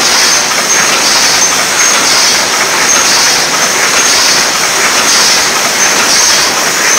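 Double-wall paper cup machine running at production speed: a loud, steady mechanical clatter with a hissing rattle that swells about once a second, one cycle of the machine.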